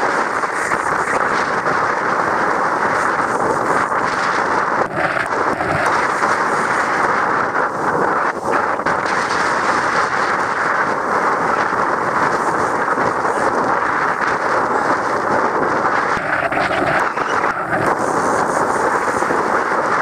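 Steady rush of wind buffeting the microphone over the hiss of a sailboat's wake churning past at speed. A short pitched tone sounds briefly about five seconds in and again about sixteen seconds in.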